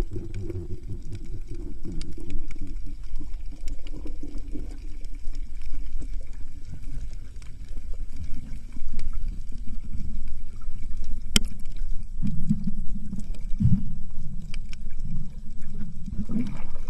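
Muffled underwater sound picked up by a camera below the surface: a low rumble of moving water with scattered faint clicks, and one sharp click about eleven seconds in.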